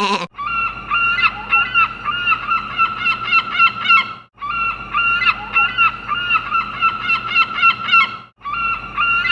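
A flock of geese honking: many short, overlapping calls in quick succession, breaking off briefly twice as the same stretch of recording repeats.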